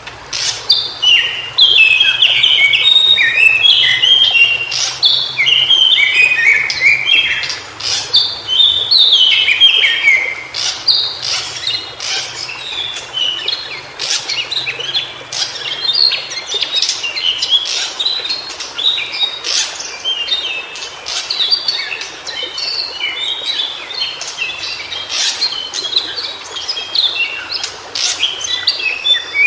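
White-browed shortwing singing: rapid, jumbled runs of high notes that mostly fall in pitch, repeated in phrases, with sharp clicks scattered among them.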